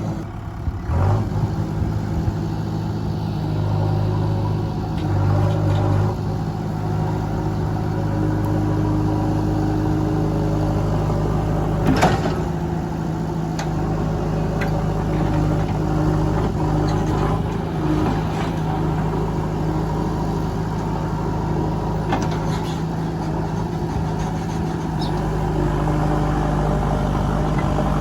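JCB backhoe loader's diesel engine running steadily, with a sharp clank about halfway through.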